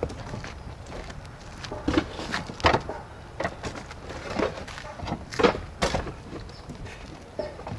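Clay S roof tiles knocking and clacking against each other as they are set down onto stacks, a string of irregular sharp clacks about one a second.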